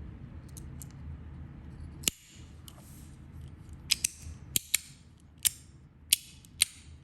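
Zirconium and brass fidget slider-clicker (TKEDC Dharma) being snapped back and forth, making a series of sharp metallic clicks at uneven intervals, the louder ones from about two seconds in. It is being worked to check that its balls are seated right after reassembly.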